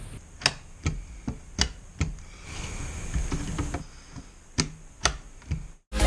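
A series of sharp clicks, several about half a second apart, from desktop DDR4 RAM modules being pressed into a motherboard's DIMM slots, typical of the slot latches snapping shut as the sticks seat.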